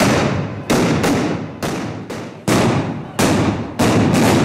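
Firecrackers going off one after another: about nine sharp bangs in four seconds at uneven spacing, each trailing away in a short echo.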